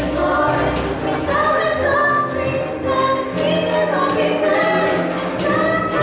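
Stage-musical ensemble singing together over instrumental accompaniment with a steady drum beat.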